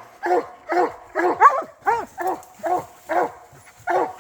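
Hunting hounds barking treed, barking steadily at a bear up a tree: a run of short, pitched barks about two a second.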